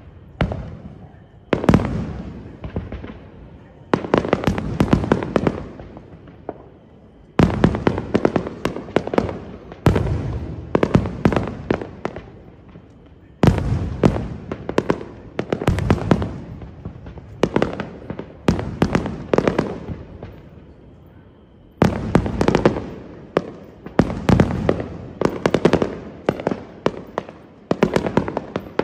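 Fireworks display: aerial shells bursting in rapid runs of sharp bangs and crackles, coming in clusters every couple of seconds with short lulls between.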